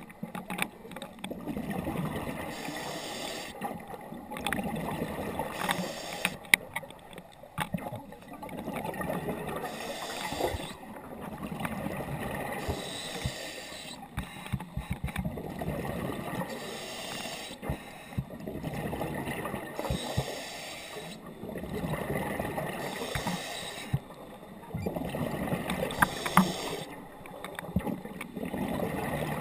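A scuba diver breathing through a regulator underwater: an inhaled hiss alternating with the bubbling gurgle of each exhale, about one breath every three to four seconds, with scattered small clicks.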